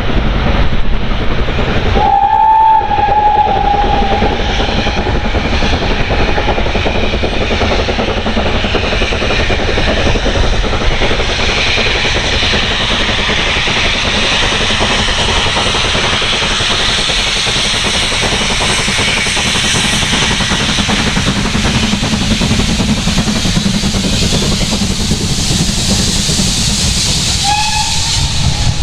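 Steam locomotive whistle blown about two seconds in, a clear pitched tone sagging slightly as it fades, then the steady rush and hiss of a steam train passing close by, with a second short whistle near the end.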